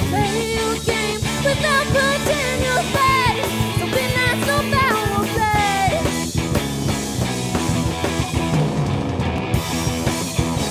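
Rock band playing live, drums and guitars. A lead melody slides up and down in pitch for about the first six seconds, then the band carries on with chords and drumming.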